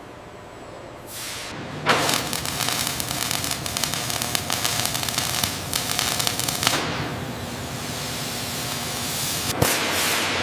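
Robotic arc welder crackling and hissing: the arc strikes suddenly about two seconds in, with dense sputtering crackle, then settles to a softer steady hiss around seven seconds, with one sharp click near the end.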